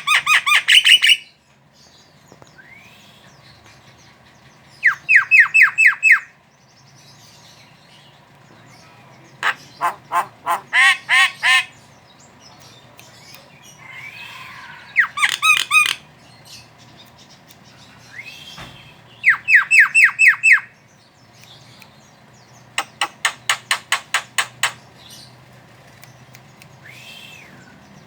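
Javan myna chattering: bursts of rapid, sharp repeated notes, each burst lasting one to two seconds and coming every few seconds, with a few single call notes between.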